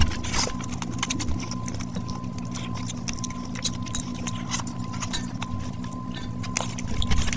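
Close-miked eating by hand: fingers squishing into oily rice and tearing fried fish apart, then wet chewing and mouth clicks. The sounds are many irregular small clicks and smacks over a steady low hum.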